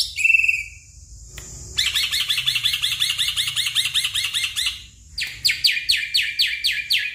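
Black-winged myna (white starling) singing: a short note, a pause of about a second, then two long runs of fast repeated chattering notes with a brief break between them.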